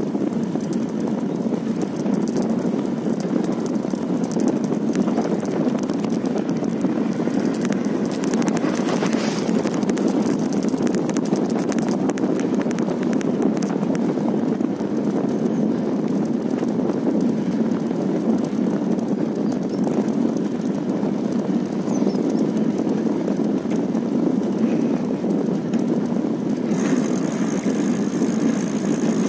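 Bicycle rolling along an asphalt road: a steady rush of tyre and wind noise on the microphone, with a few faint clicks or rattles about a third of the way in. A thin high-pitched sound joins near the end.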